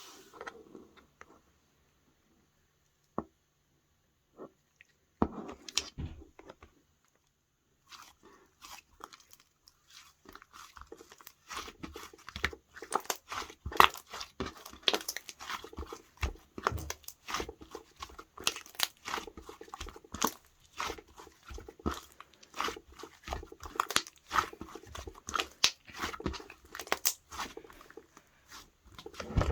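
Slime being squished and pressed by hand, with sticky clicking and popping as air pockets burst. It starts with a few scattered clicks and quiet gaps, then becomes a dense, irregular crackle of pops about twelve seconds in.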